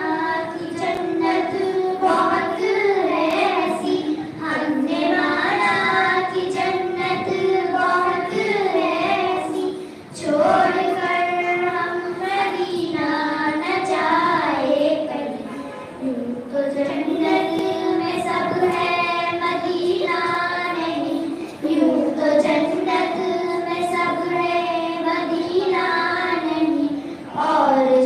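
Young girls singing an Urdu naat through a microphone, with no instruments, in long held phrases broken by short pauses for breath.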